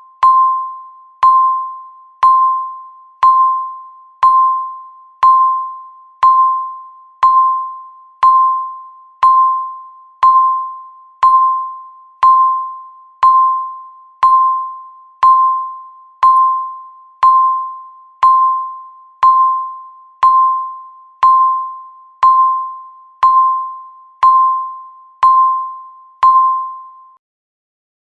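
Electronic countdown-timer beep sounding once a second, each one a single bell-like tone that strikes sharply and fades away. The beeps stop a little before the end.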